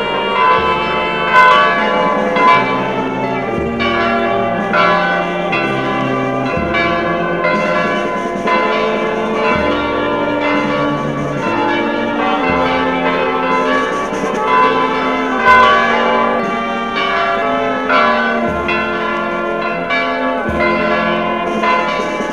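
Church bells ringing together in a continuous peal, stroke after stroke overlapping.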